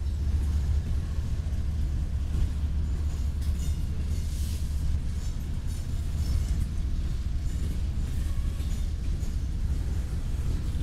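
BNSF coal train passing at close range: the rumble of its GE ES44AC diesel-electric locomotives goes over into coal hoppers rolling by. The deep rumble holds steady throughout, with short high-pitched wheel squeals and clicks here and there.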